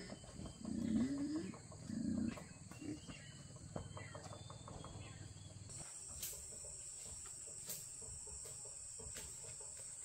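Insects droning in a steady high-pitched tone that grows louder about six seconds in. Two short, low vocal sounds about one and two seconds in, the first sliding upward, and scattered light clicks.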